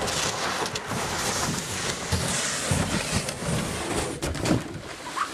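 Plastic kayak hull sliding fast down a snowy slope, a steady scraping hiss with a few bumps about three and four seconds in.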